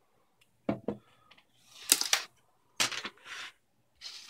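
Hard plastic 3D-printed box parts being handled on a wooden tabletop: pieces knocked together, set down and slid, making four short clusters of clicks and scrapes.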